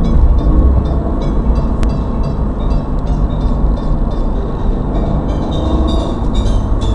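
Toyota 86 driving at steady speed, heard from a dashcam inside the car: a steady low rumble of engine and road noise.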